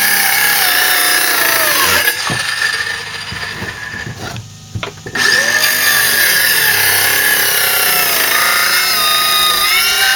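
DeWalt cordless circular saw cutting corners off a plywood board, its motor whining steadily. The sound drops off after about two seconds and breaks briefly, then the saw cuts again and winds down in pitch near the end.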